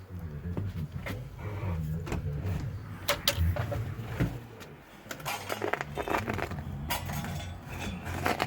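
Small metal fittings and parts of a generator LP conversion kit clinking and rattling as they are handled, with a few sharp clicks, over a low background hum.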